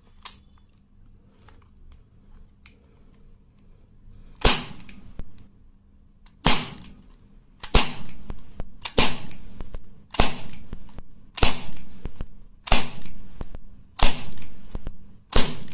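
Gamo PR-725 CO2 pellet revolver firing .177 pellets: a string of sharp pops, one about every second and a quarter, starting about four seconds in.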